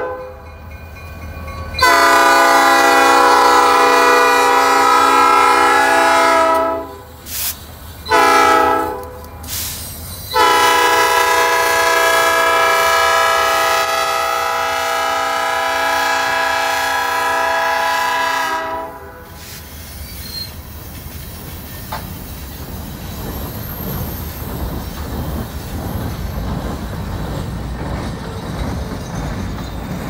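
Diesel freight locomotive air horn sounding the grade-crossing signal at close range: a long blast, a few short ones, then a long blast held for about eight seconds as the locomotives pass. After the horn stops, about nineteen seconds in, the empty hopper cars roll by with a low rumble and wheel clatter.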